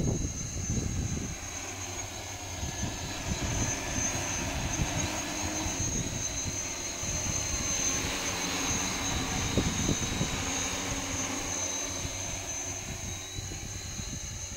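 SY141HR agricultural hexacopter's six rotors in flight: a steady rotor drone that grows louder as it passes close, about halfway through, then fades as it moves away.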